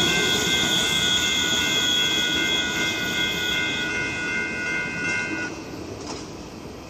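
Grade-crossing warning bell ringing in an even pulse over the fading rumble of a departing freight train. The bell cuts off about five and a half seconds in as the crossing signals switch off, and the train noise keeps dying away.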